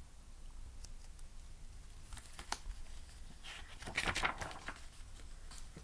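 Pages of a picture book being turned by hand: a few soft paper rustles and flaps, the clearest about two seconds in and again around four seconds in.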